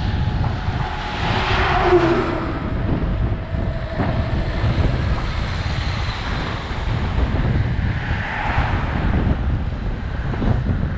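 Cars passing a bicycle on a country road: engine and tyre noise swells and fades about two seconds in and again about eight seconds in, over a steady rumble of wind on the microphone.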